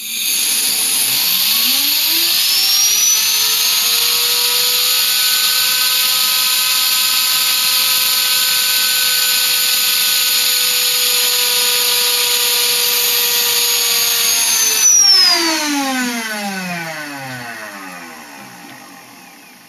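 A small bladeless Tesla turbine with carbon-fibre discs and ceramic hybrid bearings, driven by compressed air with no load. A loud rush of air starts at once, and the turbine's whine climbs quickly in pitch, then holds steady at about 30,000 rpm. About fifteen seconds in, the air rush stops, and the whine falls in pitch and fades as the rotor coasts down.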